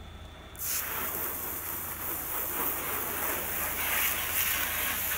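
Water spraying onto a car's hood, starting suddenly about half a second in and hissing steadily.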